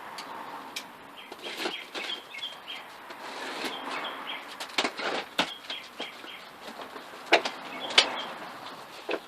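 Small birds chirping in the background, with several sharp knocks and clacks from things being handled; the loudest knock comes about eight seconds in.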